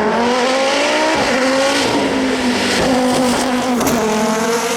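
Audi quattro competition car's turbocharged five-cylinder engine accelerating hard. Its pitch rises, drops at each gear change and climbs again, with a few sharp pops in the second half.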